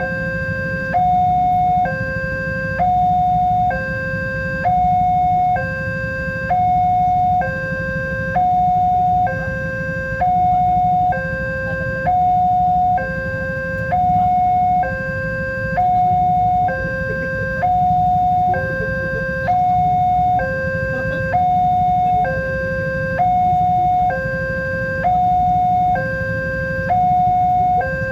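Electronic two-tone warning alarm of a railway level crossing, alternating evenly between a higher and a lower tone about once a second: the signal that a train is approaching and the barrier is closing. A steady low rumble runs beneath it.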